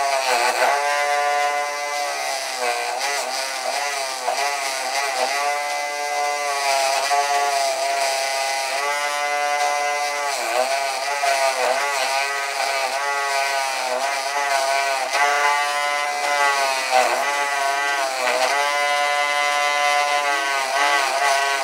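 Electric bench grinder running while acrylic is ground on its wheel: a steady motor whine whose pitch dips briefly and recovers again and again as the piece is pressed to the wheel, smoothing the edges of an acrylic name badge.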